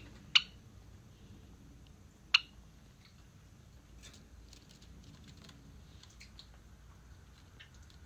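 Java sparrow: two short, sharp chip sounds about two seconds apart, then a run of faint light ticks and scratches.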